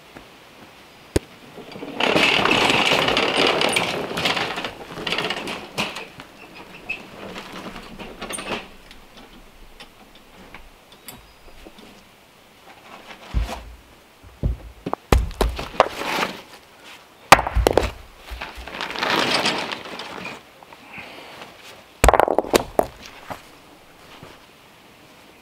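Heavy rocks being handled: a stretch of scraping and grinding, then a run of dull thuds and sharp knocks as stones are set down against one another, with more scraping and a few more knocks near the end.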